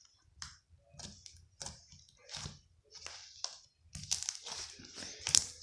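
Clear slime being squeezed and worked in the hands, making a run of short crackling clicks and pops, faster and louder near the end.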